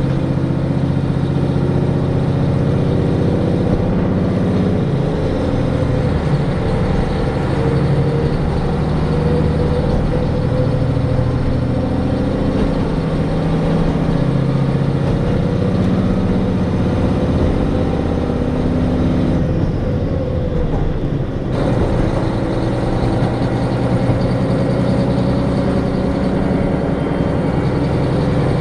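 Diesel railcar engine running as the train travels, heard from inside the passenger car: a steady, loud drone whose pitch shifts a few times with the throttle. About twenty seconds in, the higher sounds drop away for a couple of seconds and then come back suddenly.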